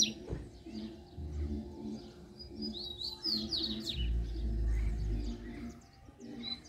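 Double-collared seedeaters (coleiros) trading song in a territorial contest: quick, high twittering phrases right at the start, a longer run about three to four seconds in, and another near the end. A low rumble rises about four seconds in and fades about a second later.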